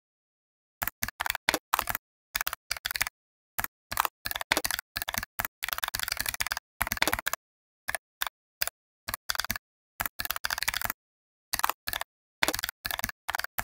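Typing on a computer keyboard: quick runs of key clicks in bursts, with dead silence between them.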